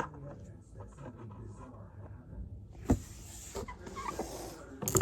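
Small fidget toys handled close to the microphone: light tapping and rustling, with two sharp knocks about three and five seconds in, and a soft hiss between them.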